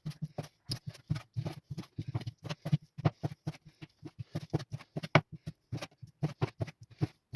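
Knife chopping chicken breast on a cutting board: a rapid, irregular run of short knocks, about five a second.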